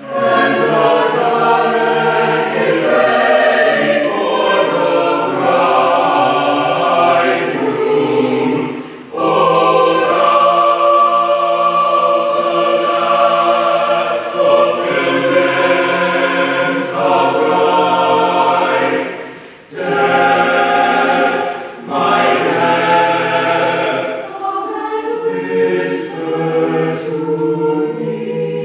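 Mixed choir of men's and women's voices singing a contemporary classical choral piece in long sustained phrases, with brief breaks between phrases about 9 and 20 seconds in.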